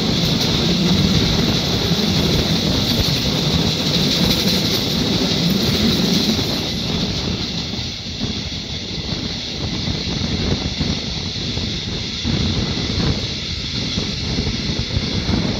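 Passenger train coaches running along the track on a curve, heard from an open window: a steady rolling rumble of wheels on rails with a high steady band in the noise. It eases and grows quieter about eight seconds in.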